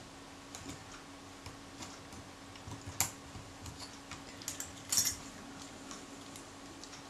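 Small metallic clicks and taps of steel tweezers and fingers on the metal body of a partly stripped Kodak Retina IIIc camera as it is worked on and turned over in the hands. A sharp click comes about 3 s in, and a louder cluster of clinks near 5 s.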